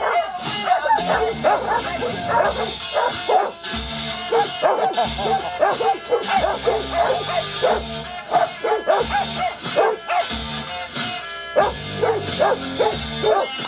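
Puppies yipping and barking in quick, high-pitched yelps as they play-fight, over background music with a steady low bass.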